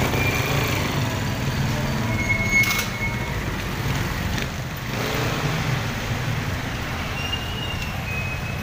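Street traffic: engines of passing motor tricycles and vehicles running in a steady low rumble, with a short high-pitched tone and a sharp click about two and a half seconds in.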